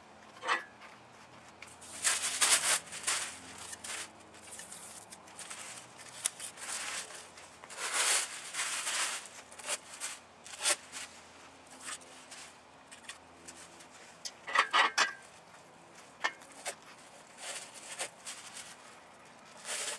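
Masking tape and sheeting being peeled off a freshly painted engine block and crumpled, rustling in several short bursts about two, eight and fifteen seconds in.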